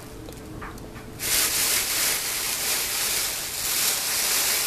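Loud, even crinkling rustle of a thin mylar foil space blanket being moved about. It starts abruptly about a second in.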